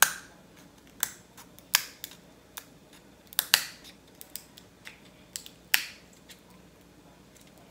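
Kitchen shears snipping and cracking through a cooked crab leg's shell: about a dozen sharp, unevenly spaced clicks and cracks, a few of them much louder than the rest, stopping shortly before the end.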